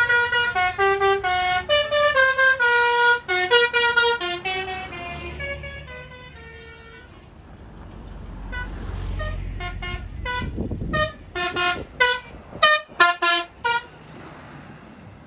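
Basuri telolet multi-tone bus horn playing a fast stepped melody of many short notes for about seven seconds. After a pause filled with a low rumble, it gives a string of short toots near the end.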